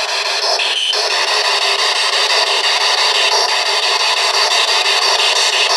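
Steady radio static hiss from a handheld spirit box sweeping through radio stations, with a short faint tone about a second in.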